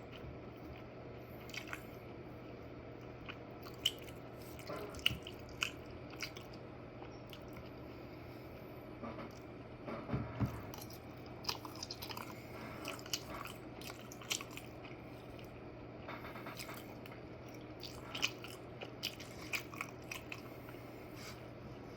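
A person eating close to the microphone: biting and chewing, with scattered small clicks and crunches over a low steady hum.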